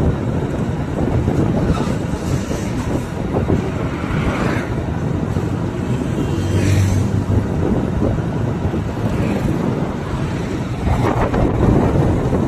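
Continuous low rumbling vehicle noise with wind buffeting the microphone, and a brief steady hum about six seconds in.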